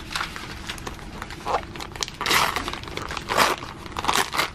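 Shiny metallic wrapping paper crinkling and rustling in several separate bursts as a present is unwrapped by hand.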